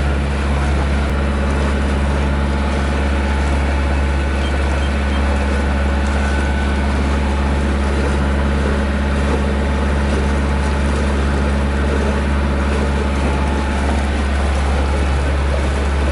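A sailboat's inboard diesel engine running steadily under way, motoring in calm conditions: a constant low drone with steady hum tones above it.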